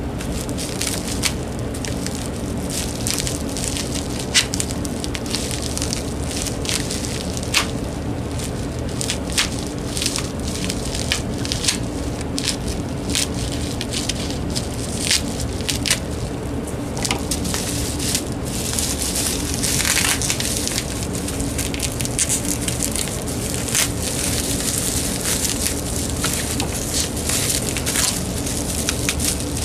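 Bubble wrap crinkling and crackling as it is cut with scissors and pulled apart by hand, with many short sharp snips and pops. A steady low hum runs underneath.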